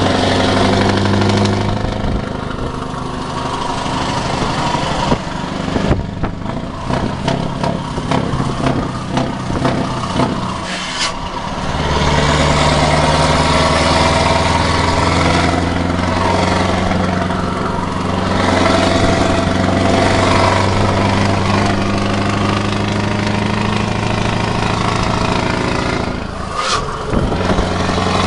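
Scania R580's V8 diesel engine running as the truck drives at speed, heard from inside the cab. The sound turns uneven and stuttering for a few seconds about a quarter of the way in, then settles into a louder, steady low drone from about twelve seconds in, with a short dip near the end.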